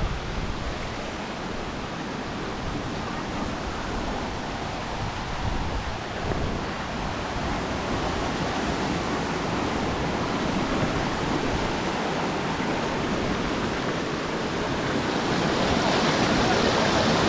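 Waterfall's falling water: a steady rushing noise that grows louder near the end.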